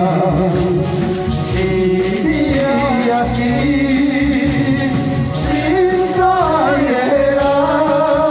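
Male voices singing a song into microphones over music, with a hand tambourine shaken in time.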